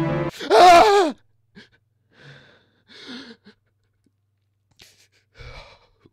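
A man jolting awake from a nightmare cries out loudly for under a second, the pitch wavering and falling, then breathes hard in several short, shaky breaths.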